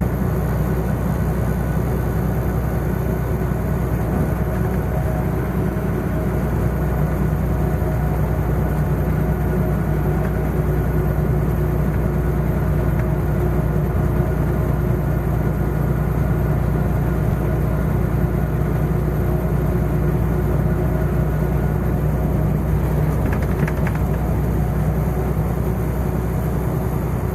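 Semi truck driving at a steady speed: an even, unchanging drone of the diesel engine and road noise, with a few faint clicks near the end.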